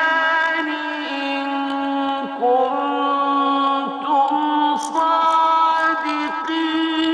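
A man's solo voice in melodic Quran recitation, holding long drawn-out notes with slow ornamented turns in pitch.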